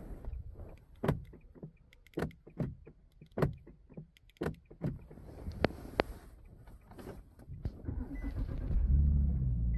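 Scattered sharp clicks and knocks inside a 2012 Infiniti G37 while its key fob is being programmed. Near the end a steady low hum comes on and keeps going.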